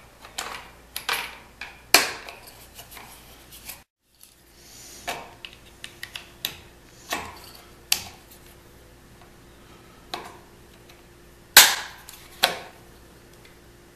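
Plastic Loc-Line coolant-hose fittings being pressed together with Loc-Line assembly pliers: a series of sharp plastic clicks and snaps at irregular intervals, the two loudest near the end as the fittings snap together.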